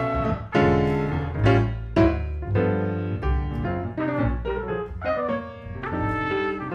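Jazz piano playing a run of struck chords and single notes over a plucked upright double bass line, with a muted-style trumpet entering near the end.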